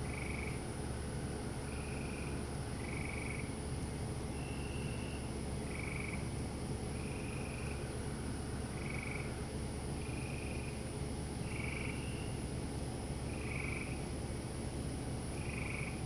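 Frogs calling: short calls of about half a second, repeating roughly every second and a half, from two voices at slightly different pitches that take turns. Under them runs a steady high insect drone of crickets and a low steady hum.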